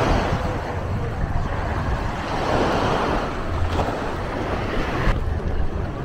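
Small waves washing up a sandy shore, swelling and receding twice, with wind rumbling on the microphone. Near the end the wash cuts off abruptly, leaving a duller wind rumble.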